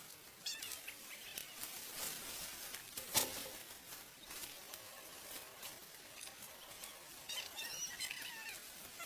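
Crisp rustling and snapping of dry rice stalks being cut and handled, with one sharp knock about three seconds in. Short high chirping calls come in near the start and again near the end.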